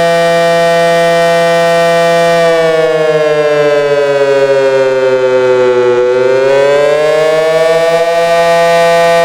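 Early Federal Signal 500 outdoor warning siren sounding a loud, steady wail. About two and a half seconds in, its pitch sags, bottoms out near six seconds, then climbs back to the same steady pitch by about eight seconds.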